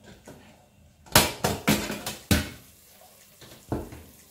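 Stainless-steel Fagor pressure cooker being unlocked and its lid lifted off: several sharp metal clunks and clatters, a cluster a little over a second in, another a second later and a last one near the end.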